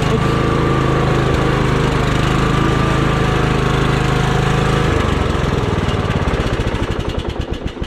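Troy-Bilt Pony lawn tractor engine running steadily while the tractor drives. About five seconds in it is shut off and winds down, its firing pulses coming slower and slower as it fades.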